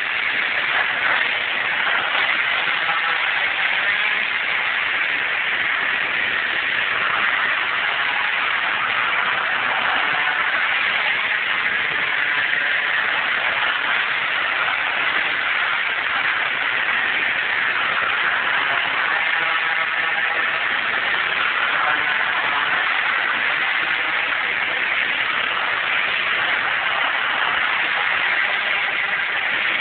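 MBK Nitro 50cc two-stroke scooter with a Malossi MHR kit running on a lap, its engine note steady with slight rises and falls in pitch.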